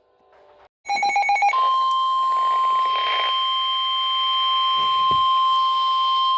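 A brief burst of pulsing digital data tones (a SAME alert header), then the NOAA Weather Radio 1050 Hz warning alarm tone: one steady, high, unwavering beep held for about five seconds, the signal that a warning message follows.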